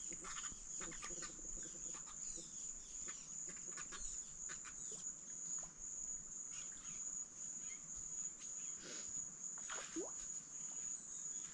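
Insects trilling: a steady, high, finely pulsing chirr, with a few faint scattered clicks and short calls.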